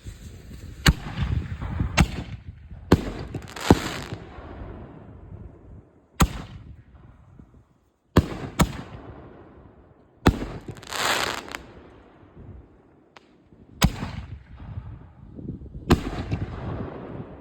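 Great American Fireworks 'Long Gun' canister shells firing: a string of loud, sharp bangs, about a dozen, spaced irregularly a second or a few seconds apart, each with a fading tail. About ten seconds in there is a longer hissing stretch.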